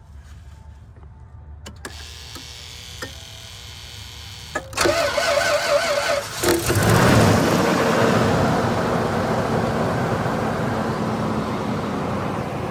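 Toyota 2UZ-FE V8 cold start: a few light clicks, then the starter cranks with a wavering whine about five seconds in. The engine catches a second and a half later and settles into a steady cold fast idle that eases slowly.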